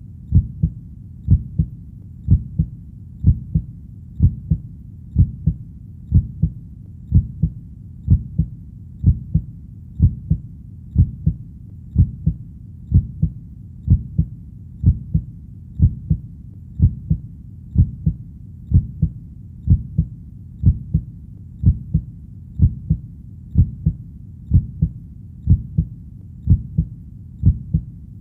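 Heartbeat beating steadily at about one beat a second, each beat a low double thump (lub-dub).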